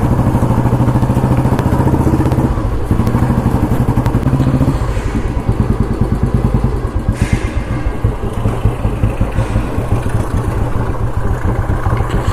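Enfield Mini Bullet's single-cylinder four-stroke engine running with an even, rapid beat as the motorcycle is ridden. The engine note changes about five seconds in, as if the throttle is eased off.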